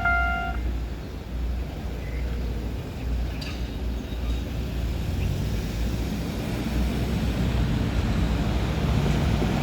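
Level crossing's electronic warning tone, pulsing about twice a second, cuts off about half a second in, leaving a steady low rumble of vehicles.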